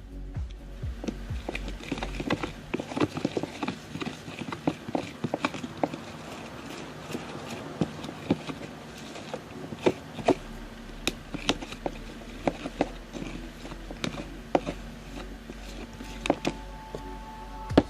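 A utensil clicking and scraping irregularly against a container while a sticky glue-and-detergent slime mixture is stirred with talc.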